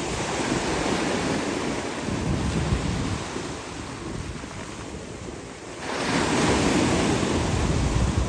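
Sea surf breaking and washing up the shore, with wind buffeting the microphone. It comes in two surges, and the second, about six seconds in, is the louder.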